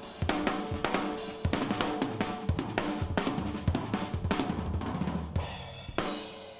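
Acoustic drum kit playing a busy groove of kick, snare, hi-hat and cymbals, recorded through analog gear with no plugins. Near the end the playing stops and a cymbal rings out and fades.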